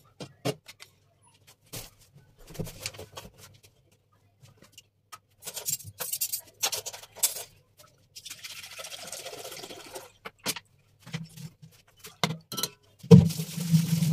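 Kitchen handling sounds: scattered clicks and knocks of utensils, then about two seconds of milk being poured from a plastic bottle into a steel pot. A loud clunk comes near the end.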